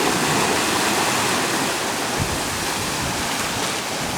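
Steady rush of water along a sailing yacht's hull, mixed with wind, as the boat sails fast at about 8 knots.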